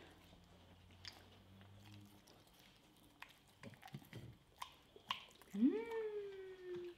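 A dog licking and chewing a strawberry, with scattered wet smacks and clicks. Near the end a drawn-out vocal tone rises and then slowly sinks.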